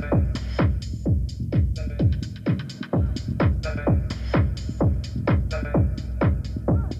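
Techno track from a DJ mix: a steady four-on-the-floor kick drum about two beats a second, with hi-hats and synth over it. The low bass drops out briefly around three seconds in.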